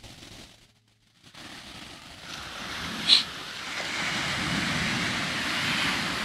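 Sea waves breaking on the shore below, the surf building louder from about two seconds in and holding strong near the end. A brief sharp noise cuts through about three seconds in.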